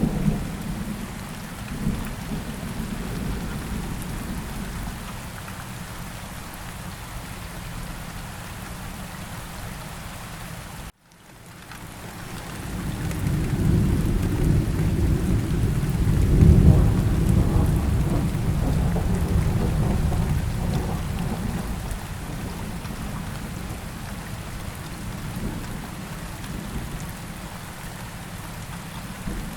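Steady rain falling, with a long low rumble of thunder. A little over a third of the way through the sound cuts out for a moment, then the thunder swells, peaks and slowly fades over about ten seconds while the rain carries on.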